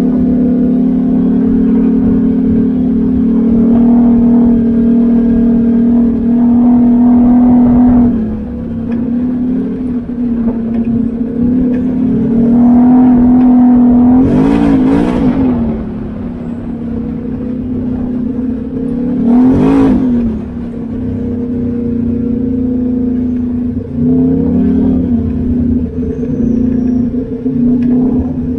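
Side-by-side UTV engine running steadily while driving a dirt trail, heard from on board. The pitch swings briefly up and down twice, about halfway through and again about two-thirds through, each time with a short rush of noise.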